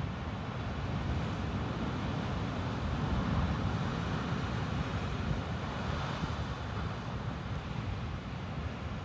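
Heavy storm surf breaking against rocky sea cliffs: a continuous wash of surging water that swells up in the middle, with wind rumbling on the microphone.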